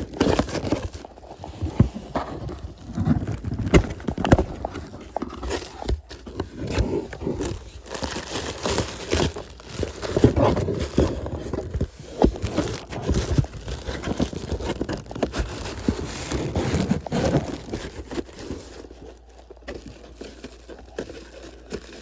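Packaging being opened by hand: irregular rustling, crinkling, tearing and knocks, easing off near the end.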